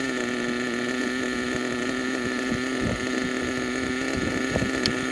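HPI Savage RC truck's small nitro engine idling steadily at a constant pitch, with a few faint knocks from handling.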